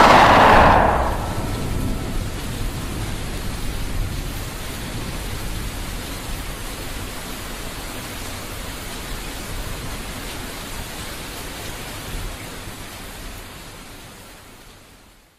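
A sudden loud burst that dies away over about a second, then a steady rain-like hiss with a low rumble beneath it, slowly fading out.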